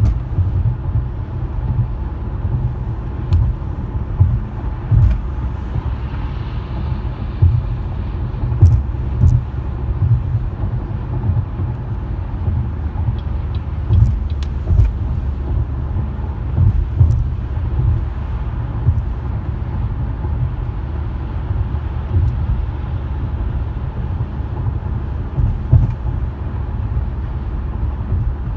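Car driving on the road: a steady low rumble of road and engine noise, heard from inside the vehicle, with a few faint ticks.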